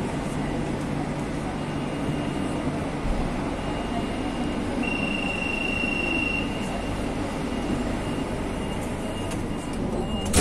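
Madrid Metro Line 6 train running on the rails, a steady rumble. A thin high wheel squeal comes and goes, strongest for a second or two about five seconds in.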